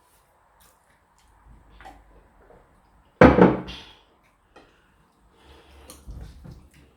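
A single loud, sudden thump about three seconds in that fades within half a second, with faint clicks and rustles around it.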